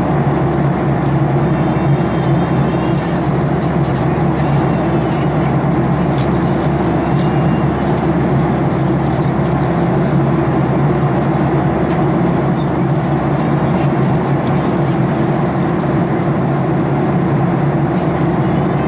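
Steady cabin drone of a Boeing 737-800 in flight: the CFM56-7B jet engines and rushing airflow make a constant, even rumble with a low hum underneath.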